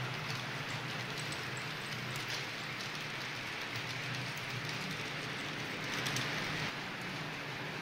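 H0-scale model freight train of gravel wagons rolling along the layout's track: a steady rattling rush of small wheels on rail with a low hum underneath, swelling briefly about six seconds in.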